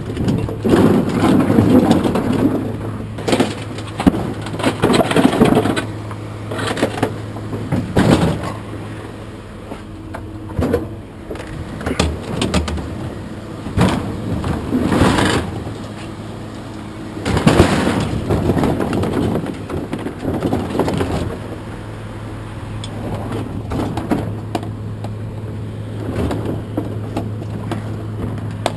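Scrap metal appliances clanking, banging and scraping in a dozen or so irregular loud knocks. A vehicle engine runs steadily underneath.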